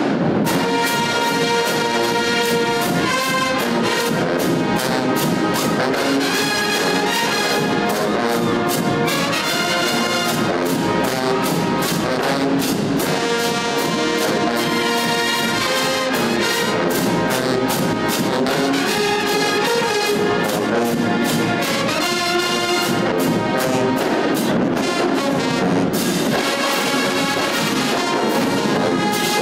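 A full marching band playing loudly: brass and sousaphones over saxophones, clarinets and flutes, with a regular beat of drum hits.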